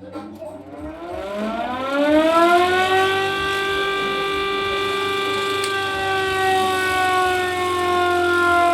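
Homemade air raid siren winding up, its wail rising in pitch for about two and a half seconds, then holding a steady, loud note.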